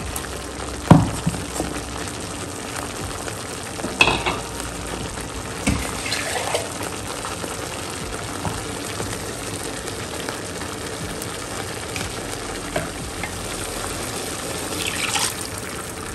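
Masala paste sizzling in a stainless steel pan as water is poured in and stirred with a metal slotted spoon, a steady hiss with a few sharp knocks of the spoon against the pan, the loudest about a second in.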